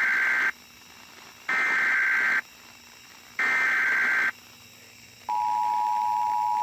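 Emergency Alert System SAME header: three bursts of warbling digital data tones, each about a second long with a second's gap between them, followed about five seconds in by the steady two-tone EAS attention signal near 1 kHz. Together they signal that a new alert, here a flash flood warning, is about to be broadcast.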